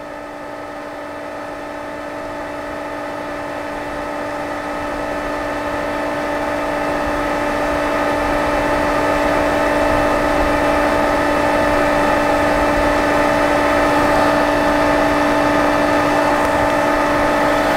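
Pool equipment motor running with a steady hum and fixed whining tones. It grows louder over the first several seconds, then holds level.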